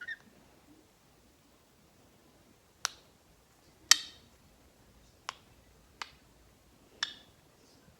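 Green-cheeked conure making tongue clicks: five sharp, irregularly spaced clicks over about four seconds, the second one the loudest.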